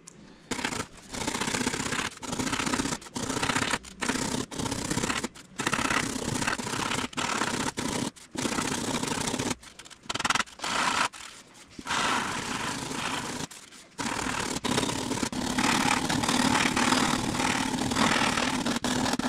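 Blue extruded-polystyrene foam being rough-shaped by hand with a sanding block and rasp: repeated scraping, rubbing strokes in runs, broken by several abrupt short gaps.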